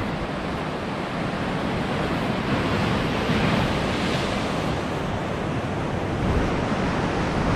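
Sea surf washing and breaking against the rocks at the foot of the cliffs, a steady rushing that swells a little midway.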